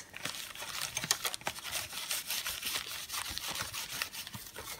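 Steel wool scrubbing the dirty steel of a knitting machine: a quick run of short, scratchy strokes that clean off the grime.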